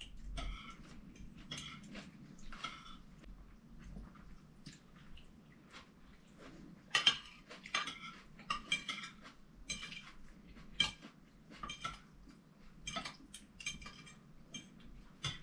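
Metal spoons, forks and a knife clinking and scraping on china plates and bowls while two people eat. Quiet, scattered taps, coming more often from about halfway through.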